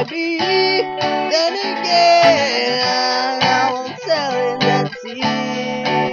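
Guitar music: strummed and picked guitar with a melody line whose notes slide and bend in pitch, in an amateur home-recorded song demo.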